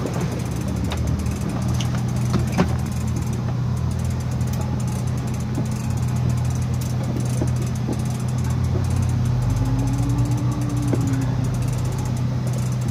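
Steady low hum of the boat's engine running, with a few sharp clicks in the first three seconds.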